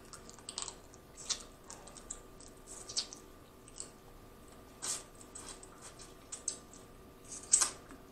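Close-miked eating sounds of boiled crawfish: scattered short wet smacks and sucking at the lips and fingers, with small clicks from handling the shells, the loudest near the end.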